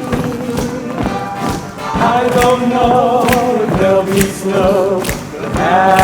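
Choir singing held notes over a musical accompaniment with a steady beat of about two strikes a second.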